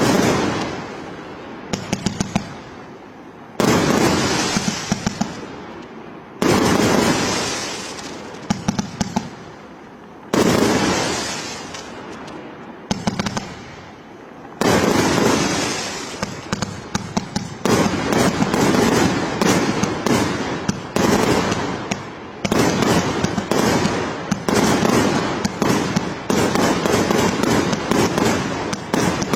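Fireworks going off: a series of loud bangs, each trailing off in crackling, a few seconds apart at first, then a dense, rapid barrage of bangs and crackles through the second half.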